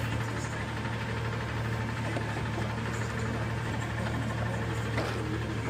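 Garbage truck engine idling steadily, with one short click about five seconds in.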